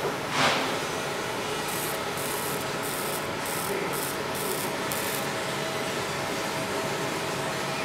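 Laser marking machine with a rotary axis marking text onto a PVC tube: seven short, high hissing bursts with brief gaps between them over about three and a half seconds, on top of a steady background hiss. A brief swish falling in pitch comes about half a second in.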